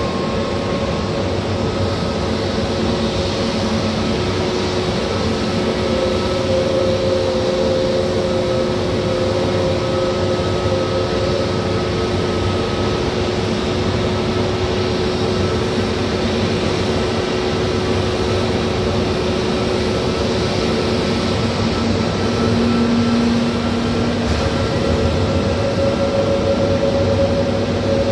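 Jet engines of a taxiing Airbus A320-family airliner at idle thrust: a steady rush with several faint whining tones held through it.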